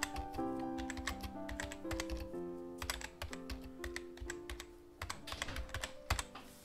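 Computer keyboard typing, irregular key clicks several a second, over gentle piano music.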